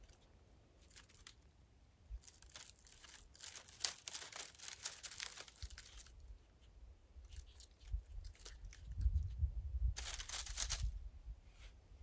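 Faint, irregular rustling and crackling of dry brush and twigs in spells, with a low rumble from about two-thirds of the way through.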